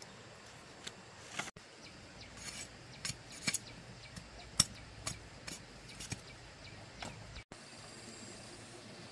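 Scattered light clicks and knocks with some scraping, a dozen or so irregular strokes of handwork. After about seven and a half seconds a faint, steady, high insect chirring comes in.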